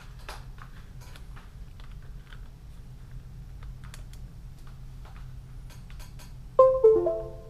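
Light scattered clicks of an SD card being handled and pushed into a computer's card slot. About six and a half seconds in, a short chime of a few stepped notes plays as the computer detects the inserted card.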